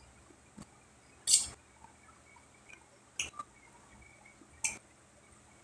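Eating with the fingers: about four short, wet mouth sounds of lip-smacking and sucking the seafood-boil seasoning off the fingers, the loudest about a second and a half in.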